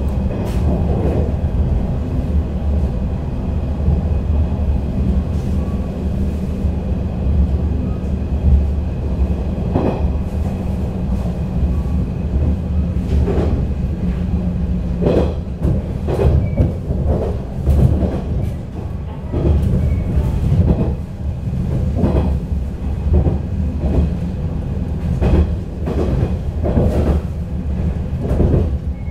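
Inside the carriage of a JR 485-series electric train running at speed: a steady low rumble with the wheels clicking over rail joints, the clicks coming more often in the second half.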